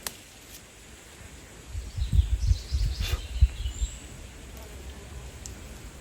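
Outdoor ambience with faint bird chirps. Loud low rumbling gusts, like wind on the microphone, come from about two seconds in to about four seconds in.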